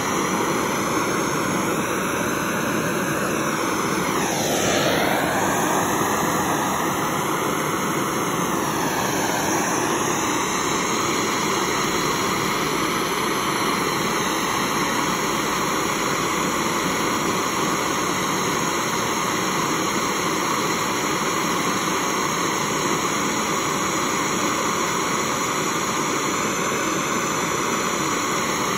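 Handheld gas blowtorch flame hissing steadily, its tone sweeping down and back up twice, about five and nine seconds in.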